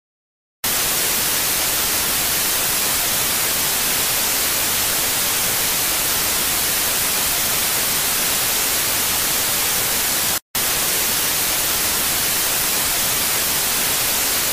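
Television static: a steady hiss that starts abruptly just under a second in and cuts out for a split second about ten seconds in.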